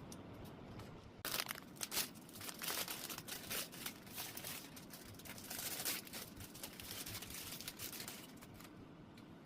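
Close-up crinkling and rustling with many sharp little crackles, starting about a second in and stopping near the end.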